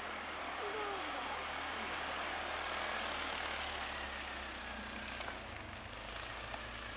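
Suzuki KingQuad ATV engine running steadily as the quad tows a rider across snow, heard from a distance. The low rumble grows stronger in the second half as it comes closer.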